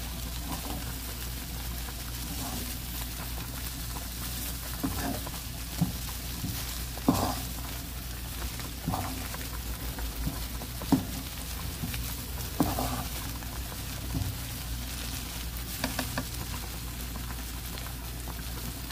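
Dried anchovies frying in a pan over low heat, a steady sizzle, while being stirred, with the stirring utensil scraping and giving short sharp clicks against the pan every second or two.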